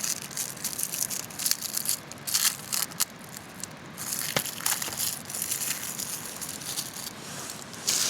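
Plastic wrappers of individual firelighter packets crinkling and tearing in short, irregular bursts as they are opened by hand.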